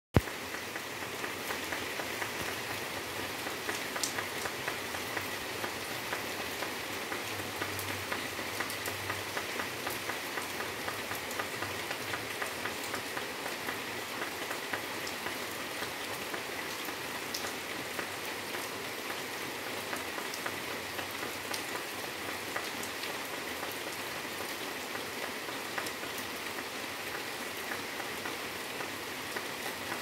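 Steady rain falling on plant leaves: an even hiss with many separate drop hits on top.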